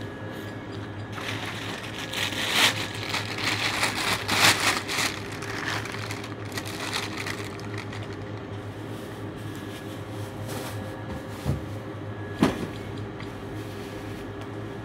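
Plastic carrier bag rustling and crinkling as shopping is packed into it, loudest in the first five seconds, then two sharp knocks near the end, over a steady low hum.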